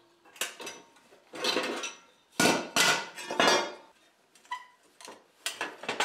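Steel plates from a dismantled wood stove clanking and scraping against each other and the concrete floor, with a faint metallic ring. There are about half a dozen separate clatters, the loudest in the middle.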